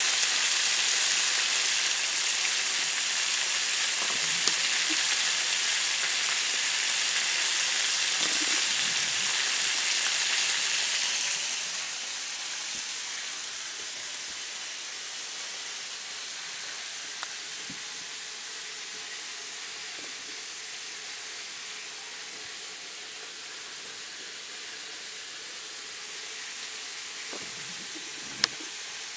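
Battered cod pieces sizzling in hot oil in a frying pan, a steady frying hiss. It is loud for about the first eleven seconds, then drops to a fainter steady hiss. A single sharp click comes near the end.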